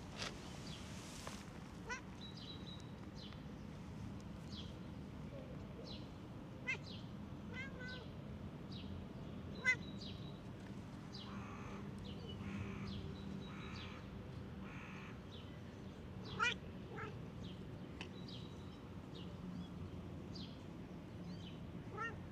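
A cat meowing: several short mews spread out over the stretch, two of them louder than the rest.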